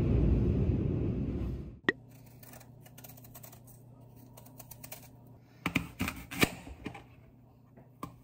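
A low rumbling noise that stops about two seconds in. Then a small kitchen knife peeling a persimmon and cutting into an apple over a plastic cutting board: quiet scraping and small clicks over a faint steady hum, with a few sharper knife strokes around six seconds in.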